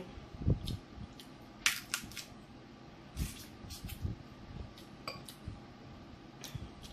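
Hands cracking and peeling sauce-coated seafood shells: a scattered series of sharp cracks and clicks, loudest a little under two seconds in, with wet eating noises from biting and chewing the meat.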